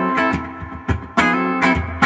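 Duesenberg Starplayer Special electric guitar strumming chords on a clean tone, bridge pickup blended partway toward humbucker, through a Fender '65 Reissue Deluxe Reverb amp. Several chords in quick succession, each struck sharply and left to ring.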